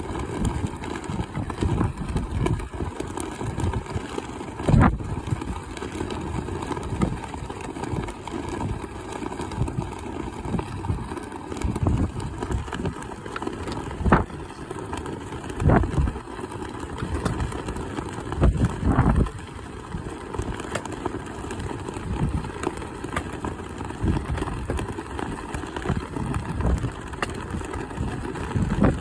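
Strong wind buffeting the microphone: a steady low rumble that comes in gusts, with a few sharper blasts.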